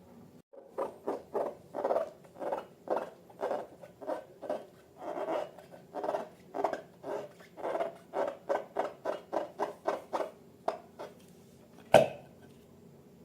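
Slime being squished and kneaded by hand: a run of short, soft squelches, about two to three a second. Near the end comes one sharp, loud click.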